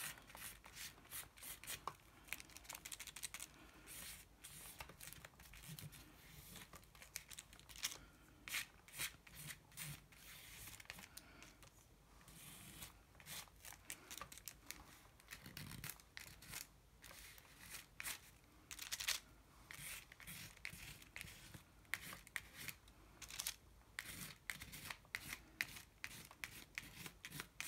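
A paintbrush stroking acrylic paint onto a collaged paper page: faint, quick, scratchy swishes in an uneven run, now and then a dab as the brush is reloaded.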